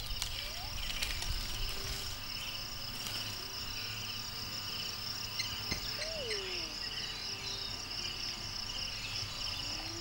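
Steady insect chorus, crickets or similar, chirring without a break: a high continuous trill over a lower pulsing one. A faint falling call sounds about six seconds in.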